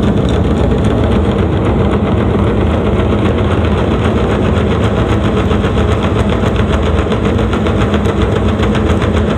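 Loud bass test signal played through a two-way loudspeaker's woofer driver, with a rapid, steady buzzing rattle over it. The woofer is being checked for the chattering noise that the owner reports accompanies its bass.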